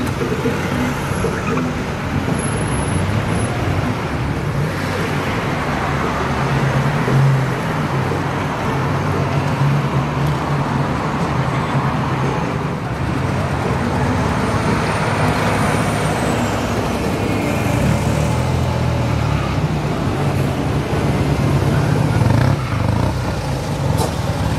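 Classic car engines running at low revs as cars roll slowly in, a steady low exhaust note with small rises and falls.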